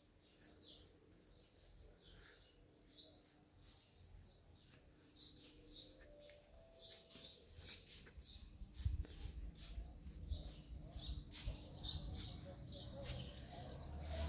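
Small birds chirping, many short repeated calls, growing busier toward the middle. A low rumble comes in from about nine seconds in, once out on the balcony.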